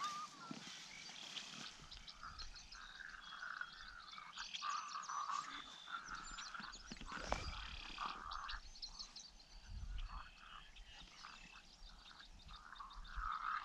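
A faint chorus of frogs croaking over and over, with many short high bird chirps mixed in.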